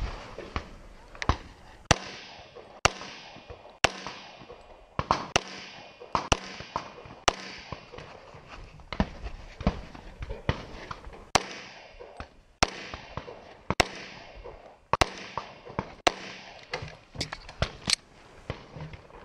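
Semi-automatic pistol shots fired through an action-shooting stage: about two dozen sharp cracks, many in quick pairs, spaced irregularly, each with a short ring-off.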